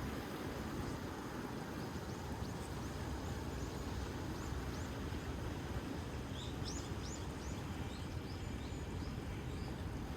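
Steady wind and surf noise on a rocky shore, with a scatter of short, high chirps that come thicker about two-thirds of the way through.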